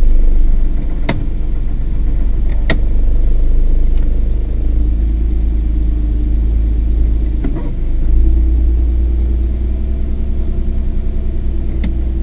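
Car engine idling, heard from inside the car through a dashcam, as a deep steady hum with a few short sharp clicks; the low hum grows louder about eight seconds in.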